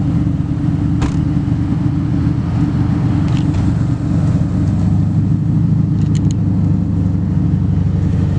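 Toyota 86's flat-four engine idling, a steady low drone from the exhaust.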